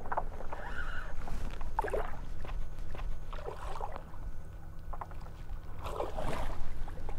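Hooked snook thrashing and splashing at the surface beside the kayak during the fight, in several short bursts a second or two apart, over a steady low rumble.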